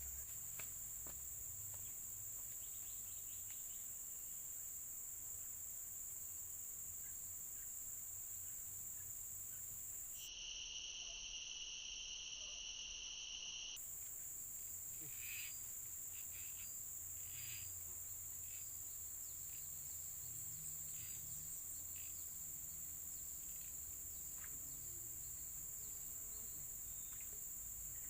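Steady, high-pitched chorus of insects shrilling without a break. For about three seconds in the middle the chorus sounds lower, and faint short ticks follow after it.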